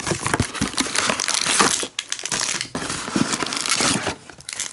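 Cardboard box of baseball card packs being opened and handled: the flaps scrape and fold, with crinkling and rustling and small clicks, quieter near the end.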